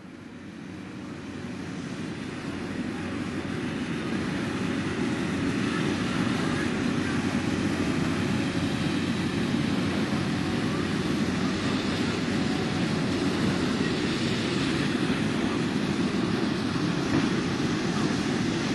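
Hot-air balloon inflator fans running steadily, a constant engine-and-propeller rumble of balloons being filled on the field; it fades in over the first few seconds.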